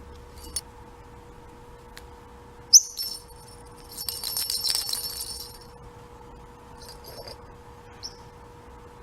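Parrotlet giving a few sharp, high chirps and a rapid rattling, jingling burst about four to five and a half seconds in: the bird's imitation of its rattling toy ball.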